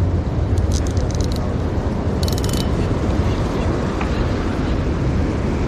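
Steady wind rumbling on the microphone over the sea, with two brief runs of fast clicking about a second in and again near the middle.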